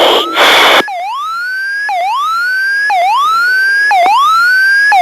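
T-45 Goshawk cockpit aural warning tone repeating about once a second, each a quick dip followed by a rising sweep. It sounds during an emergency landing with the engine damaged by a bird strike. In the first second there is a short, loud rush of noise in two bursts.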